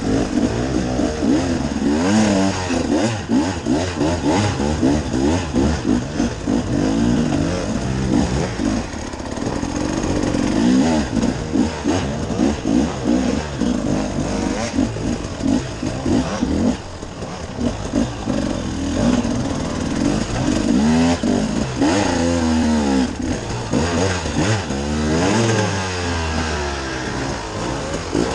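Husqvarna 300 two-stroke dirt bike engine revving up and down as the throttle is worked constantly to climb a rough, muddy trail, its pitch rising and falling every second or so.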